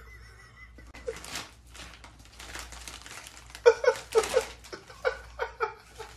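Plastic crisp bag crinkling and rustling in irregular strokes as a cat struggles with its head stuck inside it. In the second half there are several short bursts of a person's laughter.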